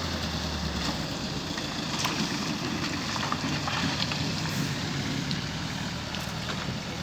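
Steady rushing of water at a canal headworks, an even noise with a few faint clicks.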